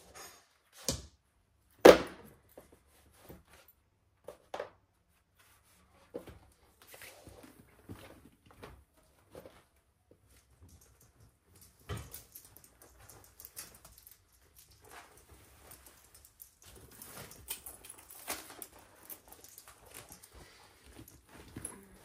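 Irregular knocks, clicks and handling noises, the loudest a sharp thud about two seconds in.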